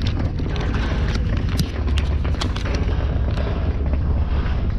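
Wind rumbling and buffeting on the camera microphone, with scattered clicks and rustles from a wallet and paper banknotes being handled right next to it.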